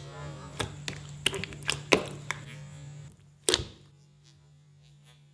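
Jiggly watery slime being squeezed and poked by hand: a run of short, sharp wet pops and squelches, about seven in the first three and a half seconds. Under them runs a steady low electrical hum that drops out about three seconds in.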